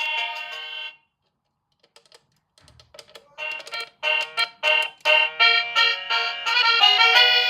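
A Restbites doorbell's electronic chime playing its tunes. One melody ends about a second in. After a short pause with a few faint clicks, a new melody starts in short, quick notes.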